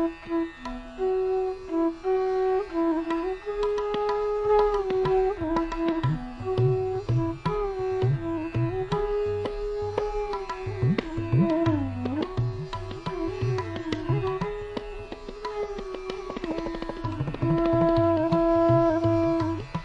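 Instrumental background music in Indian classical style: a sliding melody over a steady drone, with low drumming coming in about six seconds in.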